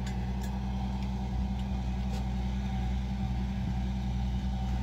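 A steady low engine hum, as of an engine idling, with a couple of faint light clicks.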